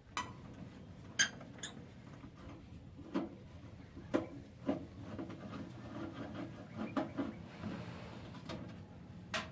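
Parts of a microwave oven being handled while it is taken apart for scrap: irregular clicks and knocks with some light scraping, a few with a short metallic ring. The sharpest knocks come about a second in and near the end.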